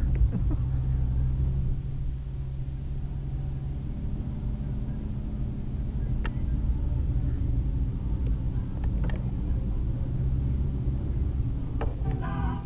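Mercedes-Benz car driving slowly over an unpaved dirt path, heard from inside the cabin: a steady low engine and tyre rumble, with a few sharp knocks from bumps about six and nine seconds in.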